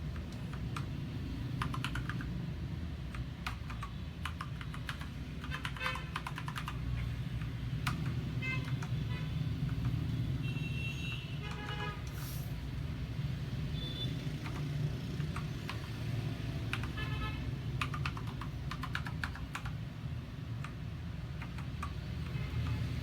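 Typing on a Royal Kludge RG928 mechanical keyboard with brown tactile switches: irregular runs of key clacks over a steady low rumble.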